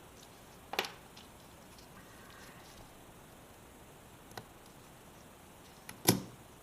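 Lock picks and a tension wrench working in a Master Lock padlock: a sharp click about a second in, a faint tick later, and a louder knock near the end.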